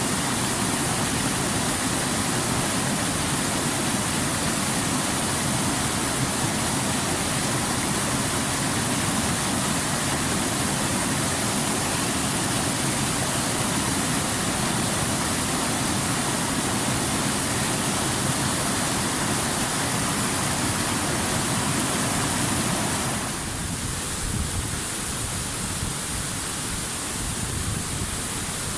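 Steady rushing water. About 23 seconds in, the deeper part of the sound drops away and it turns into a thinner, higher hiss.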